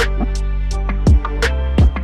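Background music with a steady drum beat over a sustained bass line.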